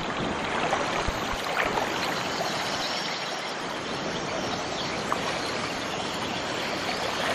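Steady rush of a flowing river around a wading fisherman, with a few small splashes as he hauls a cast net in through the water.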